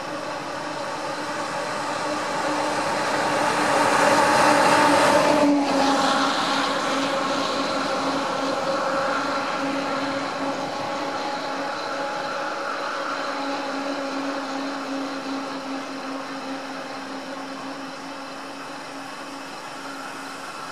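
Motor vehicles running on a road: a steady engine hum throughout, swelling as a vehicle comes close to its loudest about four to five seconds in, then dropping away suddenly and fading slowly.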